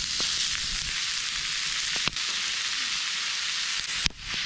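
Raw ground meat sizzling steadily in a hot cast iron skillet over campfire coals. A couple of sharp taps come through, about two seconds in and near the end, as the meat is chopped up in the pan with a hatchet.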